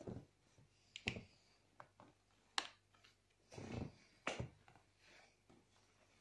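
Handling noise from a baby stroller's bassinet: a few sharp clicks and short rustles of quilted fabric and plastic-trimmed frame as hands work along its rim.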